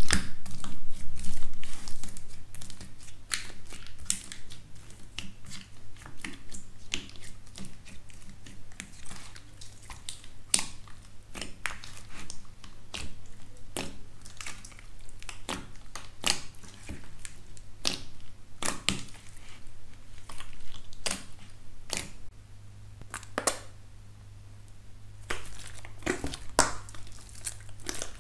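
Hands squeezing and kneading crunchy slime: a crust of tiny pink beads on teal slime cracking under the fingers, with a loud crunching in the first two seconds, then irregular crackles and sharp pops as the slime is worked.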